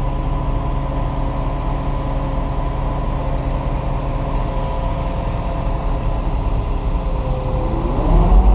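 Large engine idling steadily, then revving up about a second before the end.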